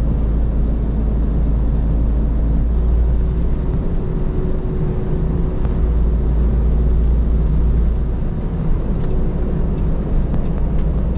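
Heavy truck cruising at motorway speed, heard from inside the cab: a steady low engine drone with tyre and road noise.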